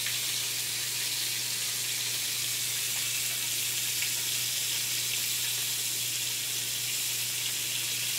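Shrimp sautéing in sauce in a cast-iron skillet: a steady sizzle with no breaks, over a low steady hum.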